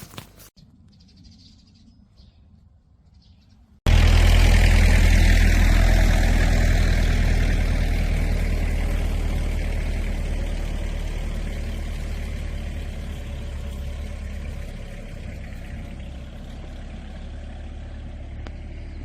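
A loud, steady engine drone with a low hum, starting abruptly about four seconds in and slowly fading.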